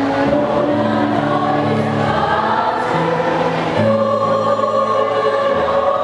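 School choir singing in parts, holding sustained chords that shift every second or so.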